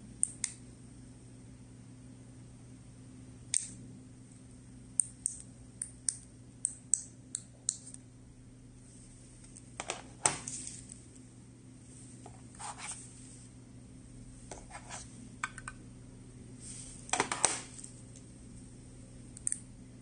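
Small plastic and metal remote-control key fobs: sharp button clicks, including a quick run of about eight clicks, as the buttons are pressed to program a copy remote from an original gate remote. Between them come a few longer rustling handling noises as the fobs are shifted and picked up.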